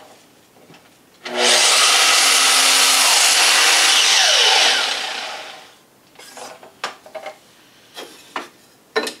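Sliding mitre saw starting about a second in and cutting a 45-degree mitre through a length of wooden picture-frame stock, then the blade spinning down. Light knocks of the cut pieces being handled follow.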